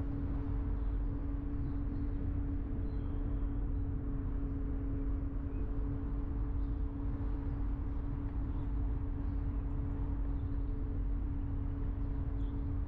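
Car driving at a steady pace: low road rumble under a steady, even droning hum that neither rises nor falls.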